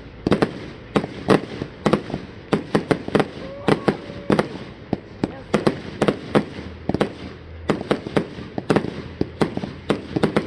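Fireworks going off in quick succession: many sharp bangs, several a second, in irregular clusters.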